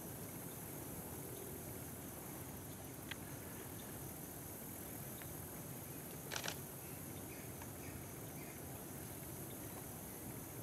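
Steady high-pitched insect chorus. About six seconds in there is a brief rustle as the barred owl spreads a wing.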